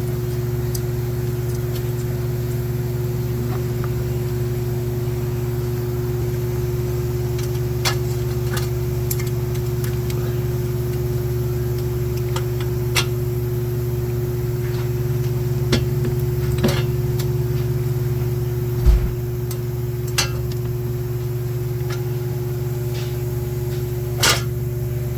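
Steady machine hum with a few scattered sharp clicks and knocks of tools and metal parts being handled during hub bearing work.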